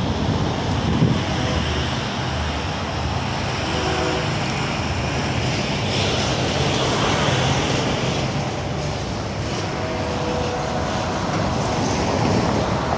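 Steady city road traffic: passing cars and trucks making an even rush of noise.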